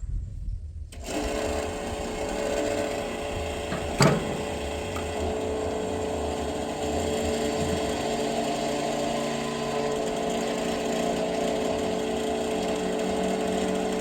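Electric fuel transfer pump switching on about a second in and then running with a steady hum as diesel is pumped into a backhoe, with one sharp click about four seconds in.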